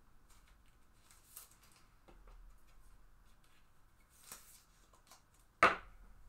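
Faint rustling of hands handling a card, then a single sharp snap about three-quarters of the way through: a magnetic one-touch card holder closing on a trading card.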